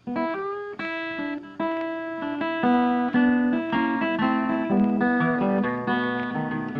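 Background music: acoustic guitar playing a plucked melody over chords.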